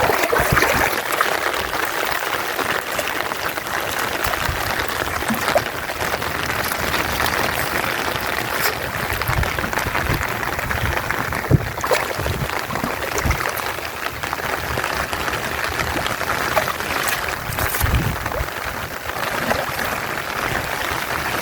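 Water splashing and trickling steadily, with a few scattered knocks.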